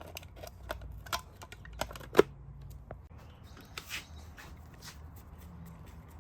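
Scattered light clicks and knocks as a motorcycle headlight and its wiring are handled and fitted, the sharpest knock a little over two seconds in. It is quieter after about four seconds.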